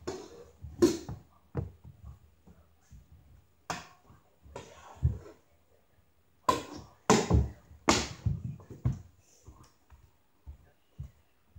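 Plastic stick blade and ball knocking on a wooden floor during stickhandling: a string of sharp clacks at uneven intervals, thickest around seven to eight seconds in, with duller low thumps between them.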